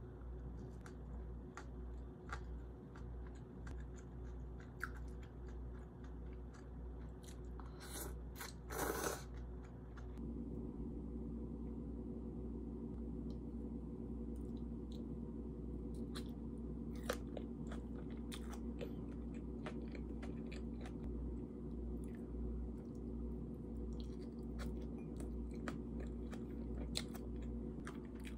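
Close-up chewing and biting of grilled chicken skewers, with many small mouth clicks over a steady low room hum. A brief louder noise comes about eight seconds in.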